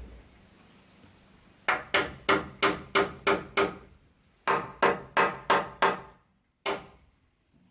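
Repeated hard strikes of a tool on wood, each with a short ring: a run of seven at about three a second, a brief pause, six more, then a single strike near the end.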